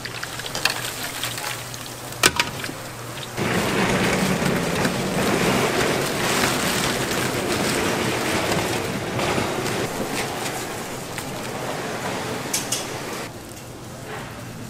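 Food frying with a loud, even sizzle that starts suddenly about three seconds in and drops away near the end, after a few sharp clicks, the strongest about two seconds in.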